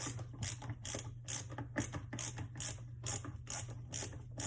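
Ratcheting screwdriver clicking at a regular pace, about twice a second, as it tightens the ground-wire screw on a garbage disposal.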